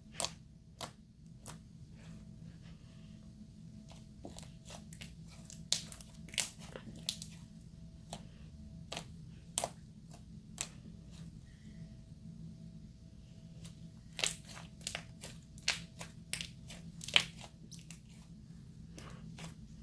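Slime being squeezed and pressed by hand, giving off scattered sharp pops and crackles. The pops come more thickly and loudly about three-quarters of the way through, over a faint steady hum.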